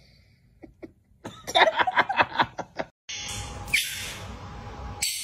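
A person laughing in quick bursts for about a second and a half, then a steady hiss that starts abruptly about three seconds in.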